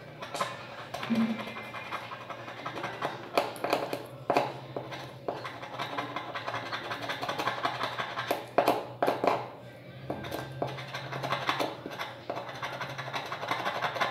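Background music with a voice over light, irregular scratching of a metal spatula on the metal dome contacts of a button phone's keypad board, scraping off the tarnish that stopped the keys from working.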